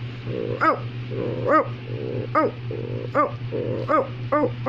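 Dog barking in a steady series, about one bark a second, with a low growl between the barks.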